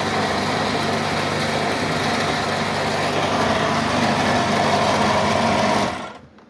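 Air compressor running steadily, then shut off about six seconds in.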